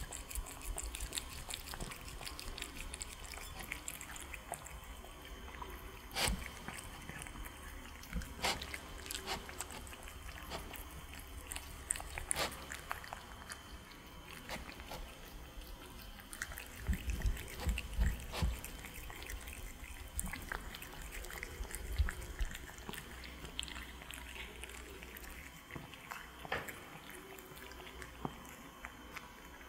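Two cats eating sushi rolls off plates: close, wet chewing, licking and smacking with scattered small clicks. A few low bumps come about two-thirds of the way in.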